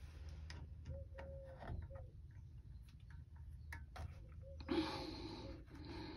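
Light clicks and taps of small metal parts and tools being handled while refitting the cover on a well pump pressure switch, with a short, louder rustle about five seconds in.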